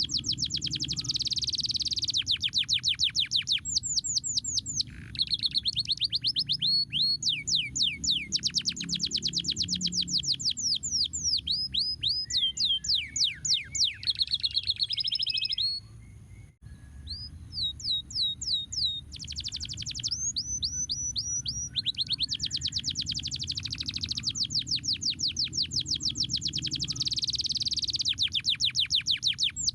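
Domestic canary singing in long rapid trills and runs of fast down-slurred notes, with a short pause about halfway through, over a steady low background rumble.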